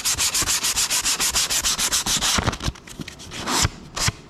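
Sheet of 240-grit sandpaper rubbed by hand over dried wood filler on a wooden box, in fast back-and-forth scratchy strokes, several a second. About two and a half seconds in, the rhythm breaks into a few separate strokes with short pauses. The filler sands off easily.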